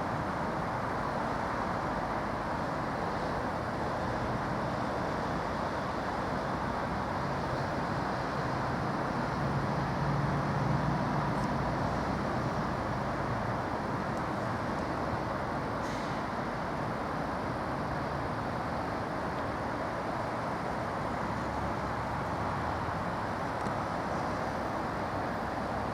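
Steady rumble of distant vehicles, swelling slightly with a low hum about ten seconds in.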